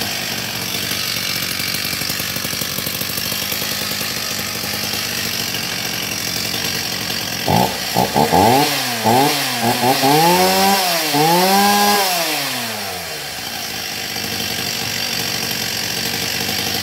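Stihl 024 two-stroke chainsaw engine (42cc) running at idle, then revved several times about halfway through, its note rising and falling with each blip of the throttle, before dropping back to idle.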